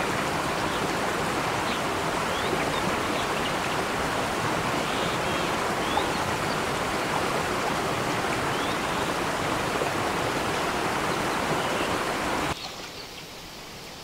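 Water of a small forest stream rushing over rocks and little cascades, a steady rushing noise. About twelve and a half seconds in, it drops to a much quieter flow of water.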